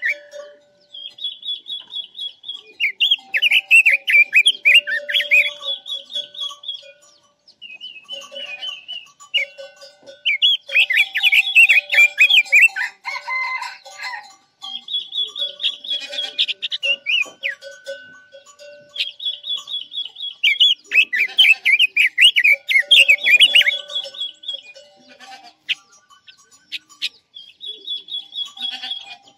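A caged Quế Lâm songbird, kept as a decoy bird, singing in repeated bursts of rapid, high twittering and trilled phrases, with short pauses between them.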